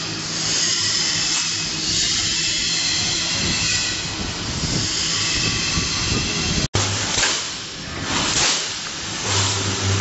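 Double wire mesh fence welding machine running: a steady hiss over a low mains hum, then, after a sudden dropout about two-thirds through, repeated clanks from the welding heads about one to two a second with short bursts of a low welding-transformer buzz.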